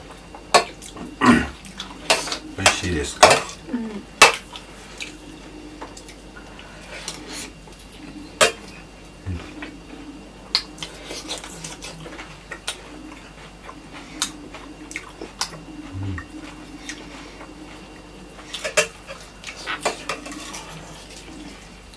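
Metal spoon clinking and scraping against a metal plate of rice and dal during a meal, with eating sounds. The clinks come in a quick flurry in the first few seconds, thin out to scattered taps, then bunch up again near the end.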